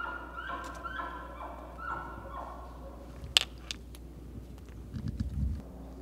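Bull elk chuckling at the tail of a bugle: a run of short, grunting notes that step down in pitch over the first two and a half seconds. A single sharp click comes about three and a half seconds in, and low thumps near the end.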